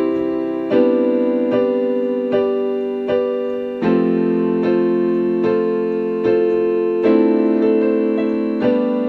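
Solo keyboard played with a piano sound: slow ballad chords restruck about once every 0.8 seconds, moving to a new chord every few seconds, in an instrumental passage between sung lines.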